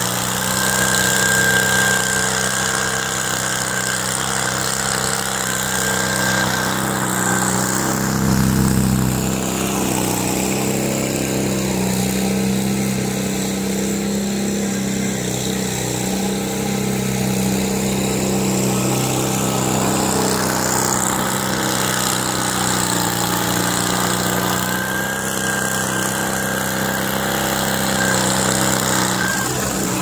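Skid steer engine running steadily at an even pitch. Its higher sounds fade for several seconds mid-way and then come back.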